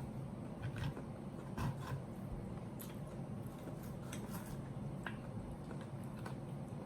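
Close-miked eating sounds: scattered soft clicks and mouth noises from chewing.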